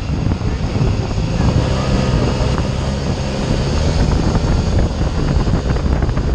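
Long-tail boat's engine running steadily at speed, with rushing water and wind buffeting the microphone.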